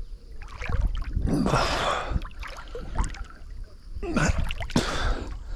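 A swimmer splashing through river water close to the microphone, with breaths between strokes; the splashing comes in two main bursts, about a second and a half in and about four seconds in.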